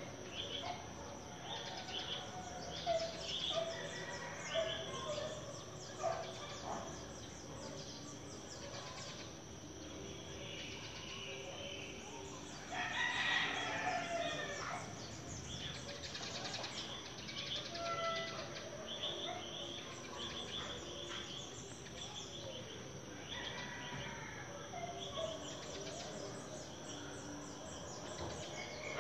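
Birds chirping with many short calls, and a rooster crowing once, louder and longer, about thirteen seconds in. A steady high tone runs underneath.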